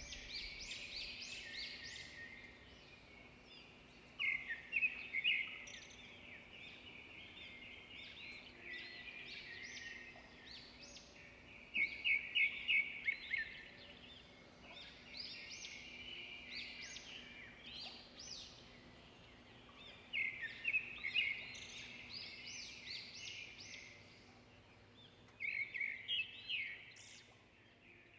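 Small birds chirping in clusters every few seconds, the loudest of them quick runs of sharp, high notes.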